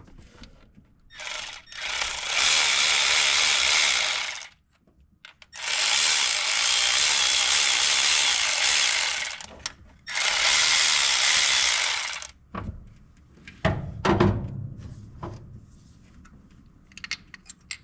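Power ratchet running in three bursts of a few seconds each, backing out the rocker assembly on an AMC 360 V8, followed by a few sharp metal clicks and knocks of parts being handled.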